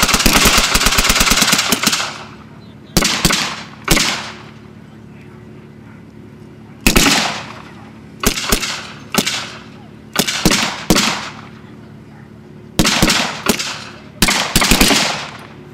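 Blank gunfire from WWII-era rifles and an automatic weapon: rapid automatic fire for about the first two seconds, then about a dozen single shots at irregular intervals, some in quick pairs, each with a short echo.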